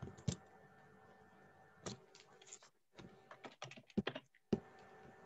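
Computer keyboard being typed on: irregular, faint keystrokes, some single and some in quick clusters, over a steady low hum.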